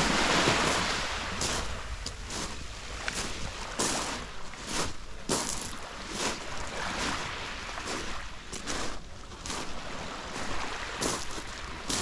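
Small waves breaking and washing up a pebble beach, loudest in the first second, then a softer wash. Footsteps crunch on the pebbles throughout.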